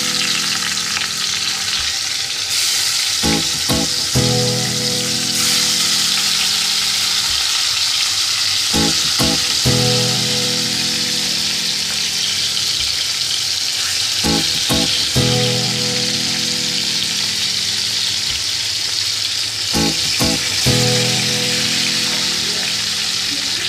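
Marinated pomfret pieces sizzling as they shallow-fry in hot oil in a kadai, a steady loud hiss.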